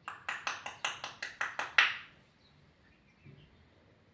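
A quick run of about ten hand claps over two seconds, the last one the loudest.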